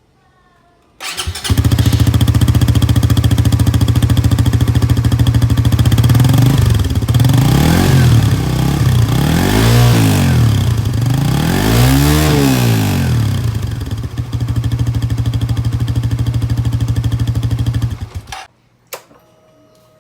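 Suzuki GSX-S150's single-cylinder four-stroke engine started about a second in, idling, revved up and back down three times, then idling again before being shut off near the end. It is a sound test of the intake with a high-flow air filter and shortened airbox snorkel.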